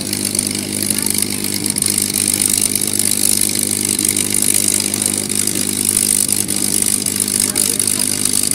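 P-51 Mustang's V-12 piston engine running steadily at idle on the ground, with no change in pitch or level.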